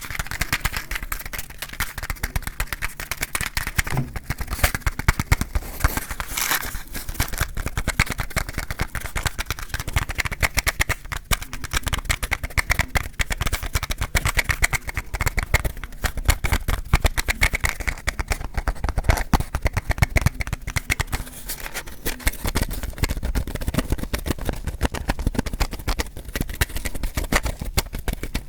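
Burning matches crackling, a dense steady run of small pops and snaps.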